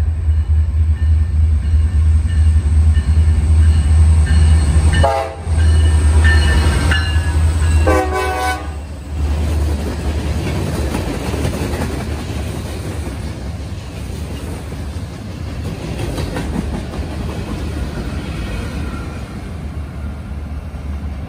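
Norfolk Southern freight train passing close: the diesel locomotives' engines run loud with a deep rumble, the horn sounds briefly about five seconds in and again about eight seconds in, then the freight cars roll past with steady wheel noise and clatter, quieter than the engines.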